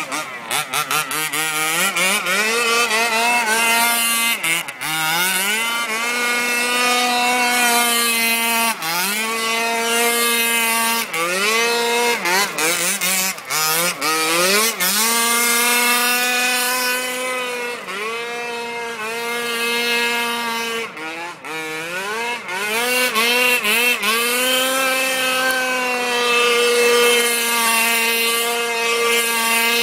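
HPI Baja 5T RC truck's 26cc two-stroke engine with a DDM v2 tuned pipe, revving hard: the pitch climbs, holds steady at high revs for a few seconds, then drops with quick throttle lifts and climbs again, over and over.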